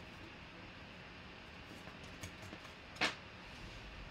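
Faint steady room hiss with a few light ticks, then one sharp click about three seconds in.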